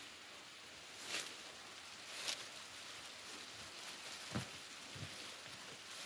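Horse moving in dry undergrowth: sharp rustles of dry plants about one and two seconds in, then two soft hoof thuds, over a steady hiss.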